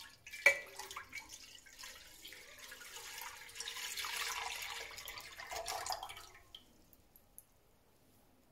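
Milk poured in a steady stream from a carton into a stainless-steel pot, with a sharp tap about half a second in; the pour stops about six seconds in.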